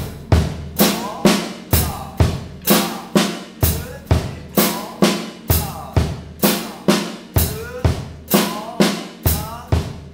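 Drum kit played at a steady pulse of about two strokes a second: single hand strokes on the drums alternate with bass drum kicks in a double-stroke coordination exercise. Some strokes ring with a short falling tom pitch.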